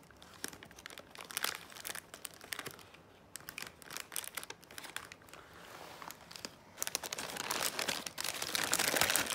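Metallic foil gift wrap crinkling and rustling as a baby's hands paw at it, in irregular crackles that grow denser and louder near the end.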